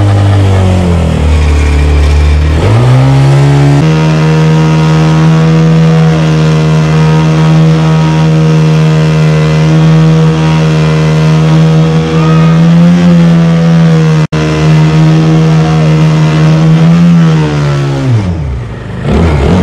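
Honda Titan 150 single-cylinder four-stroke motorcycle engine driving a mini jet boat at speed. The revs climb about three seconds in, hold high and steady, then drop off near the end.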